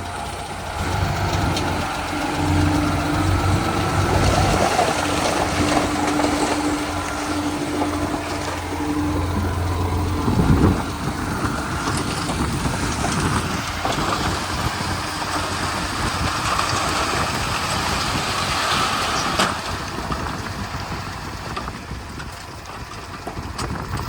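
Komatsu D31P bulldozer's diesel engine running steadily as the machine works. A low hum holds for the first ten seconds and then falls away after a brief louder surge.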